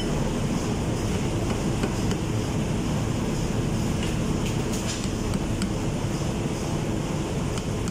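Steady drone of ship's engine-room machinery, a continuous low rumble with hiss over it. A few faint light clicks come through around the middle.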